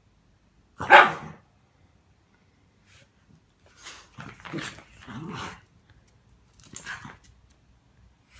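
Two small dogs at rough play: one loud, sharp bark about a second in, then several shorter bursts of barking and growling.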